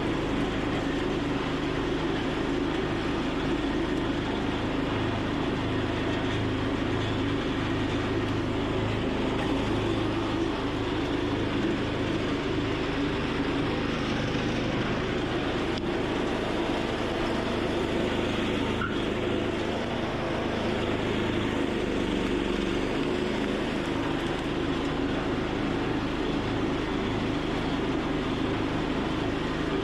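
A vehicle engine running steadily at an even pitch, with no breaks or changes in speed.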